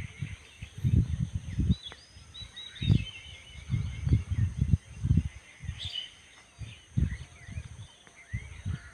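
Wind buffeting the microphone in repeated irregular gusts, with small birds chirping and calling in the background.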